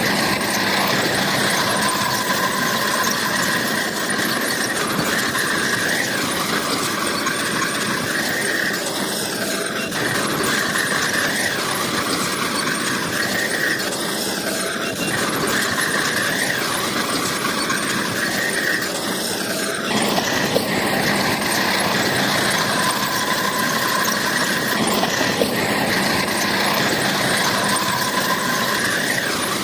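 Bulldozer at work: its steel crawler tracks give a continuous high squeal over the engine running, with an abrupt change about twenty seconds in.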